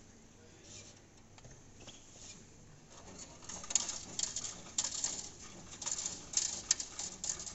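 Ticket machine paying out change: a rapid run of coins clinking and clattering into its metal delivery tray, starting about three seconds in, with a hand raking through them.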